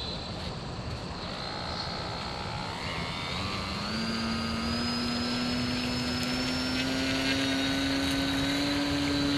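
A homemade radio-controlled seaplane's motor and propeller running up as the plane taxis on the water. It is a thin, high whine that comes in about a second and a half in, jumps up in pitch around three seconds in, then holds steady and grows a little louder.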